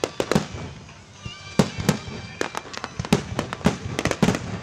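Fireworks display: many sharp bangs and cracks from bursting shells in quick, irregular succession, easing briefly about a second in, then picking up again.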